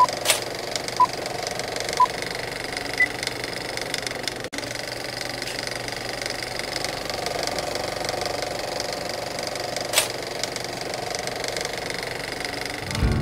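Film-leader countdown beeps, one a second, the last one about three seconds in higher in pitch. Under them runs the steady whirring clatter of an old cine projector, with a couple of sharp crackle pops.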